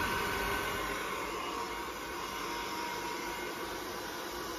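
Handheld hair dryer running steadily on its medium setting: an even blowing rush with a faint steady whine.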